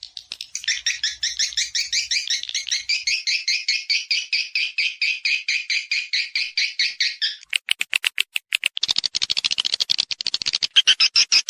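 Swiftlet mating-call lure recording: a fast, even series of high twittering chirps. About seven and a half seconds in it switches to sharp clicking, then to a denser chattering twitter.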